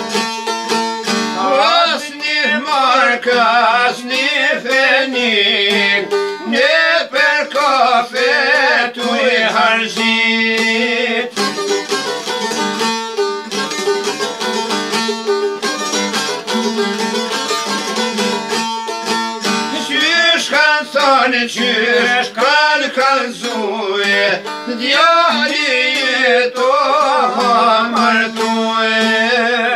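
Two long-necked plucked folk lutes played together, a steady drone note held under a fast plucked melody. A man sings in a wavering, ornamented voice over them for about the first ten seconds. After an instrumental stretch in the middle, the singing returns for the last ten seconds.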